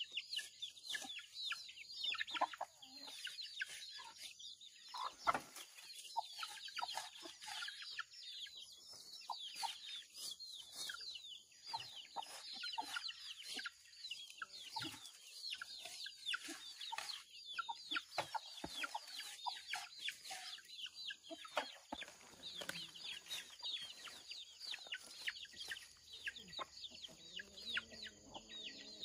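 Chickens clucking, with many short, high chirping calls in quick succession throughout.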